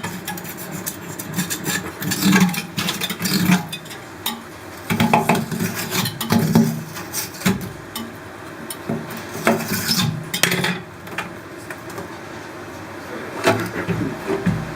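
Tools scraping, rubbing and clinking on aquarium glass and silicone seams, in irregular strokes with a few heavier knocks in the middle.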